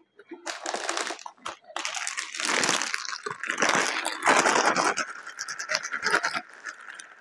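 Plastic chip bag crinkling loudly as it is picked up and handled, in irregular spells for about six seconds. A faint steady high tone runs underneath and is left alone near the end.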